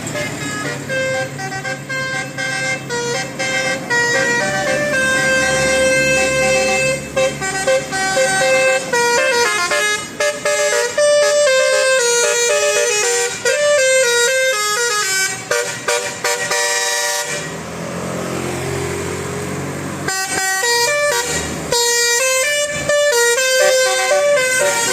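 Bus telolet horn, a multi-note musical air horn, playing quick melodic runs of short stepped notes. About two-thirds of the way through the horn breaks off for a couple of seconds of vehicle noise, then starts its runs again.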